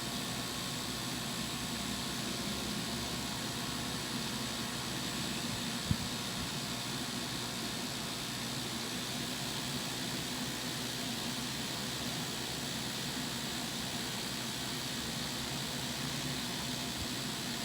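Steady whirring rush of a spinning fan-shaped LED display, with one sharp click about six seconds in.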